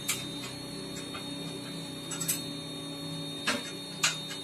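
A 3.5 kg Suprito drum coffee roaster running with a steady hum, preheated just before the beans are charged. A few short clicks and knocks sound over it, the loudest near the end.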